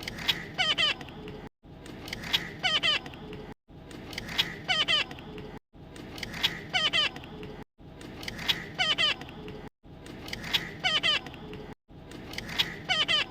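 Parrot's high, wavering squeaky calls, the same roughly two-second run of squeaks repeating over and over, each time broken off by a short dead-silent gap.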